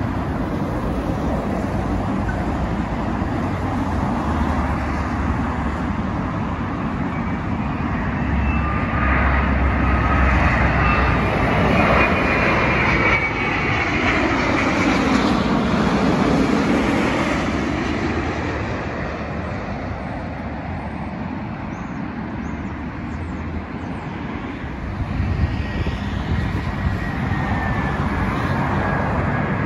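British Airways Boeing 787-9 with Rolls-Royce Trent 1000 engines on final approach, passing low overhead: the jet noise builds, peaks about halfway through as it goes over, then fades away. Road traffic runs steadily underneath.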